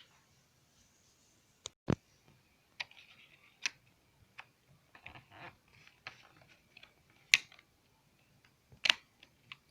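Scattered sharp plastic clicks with light scraping and rattling between them, from hands working on a Sony Vaio E-series laptop while its RAM is upgraded. The loudest clicks come about 2, 7 and 9 seconds in.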